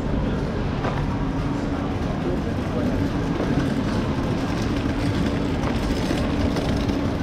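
Electric bike riding over stone paving: a steady rumble of tyres and wind, with a steady motor hum.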